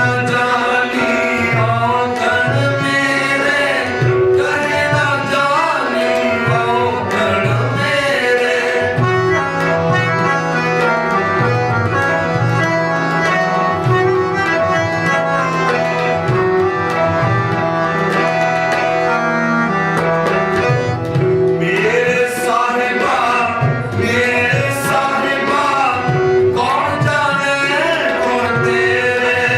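Shabad kirtan: a voice singing a Sikh hymn over harmonium and tabla. In the middle there is a stretch of harmonium and tabla alone.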